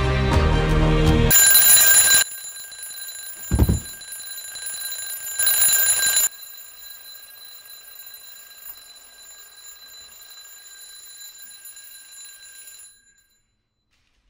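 Twin-bell alarm clock ringing in two loud bursts about a second long each, with a dull thump between them; a faint high ringing lingers afterwards and stops near the end.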